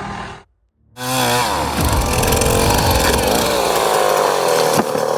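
Wood chipper running hard as it shreds wood. It starts abruptly about a second in, after a brief silence, and its pitch dips and then wavers as it works under load.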